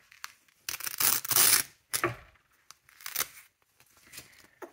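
Velcro fastening of a baby's swaddle wrap being ripped open: one long rip about a second in, then a couple of shorter rips, with fabric rustling.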